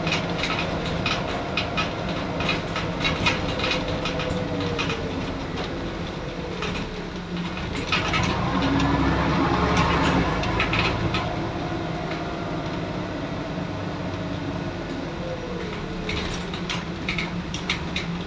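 Scania N94UD double-decker bus heard from inside on the upper deck while driving: the engine and transmission whine glides down in pitch, then rises and grows louder about eight seconds in as the bus pulls harder, and falls away again later. Many small clicks and rattles from the bus body and fittings run over it.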